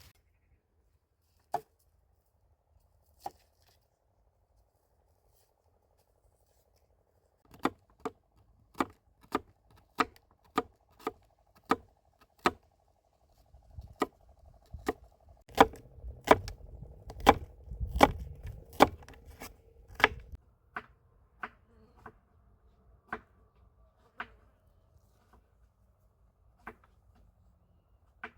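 A knife chopping on a cutting board in single, evenly spaced strikes. There are a couple of isolated chops, then a steady run of strikes roughly every half-second to second, heaviest in the middle and thinning out near the end.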